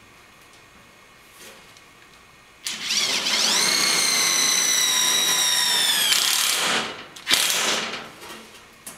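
A cordless driver drives a number 8 self-drilling screw through a thin sheet-metal backsplash. The motor whine rises as it spins up, holds steady for about three seconds, then stops. A short second burst follows about a second later.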